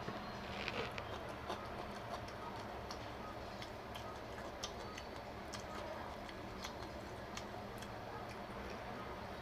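A person eating Indian food: chewing, with small, irregular mouth clicks and smacks several times a second over a steady low hum.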